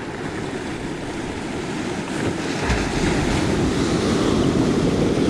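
Sea surf washing up over a cobble beach, swelling louder about halfway through, with wind rumbling on the microphone.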